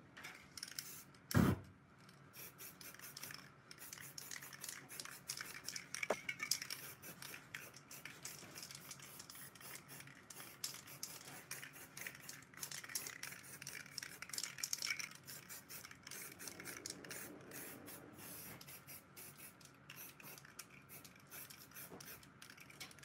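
Aerosol spray paint cans hissing in many short, rapid bursts, with one loud knock about a second and a half in.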